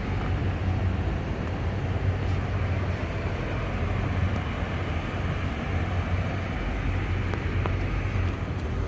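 Steady low machine hum with an even rushing noise, unchanging throughout.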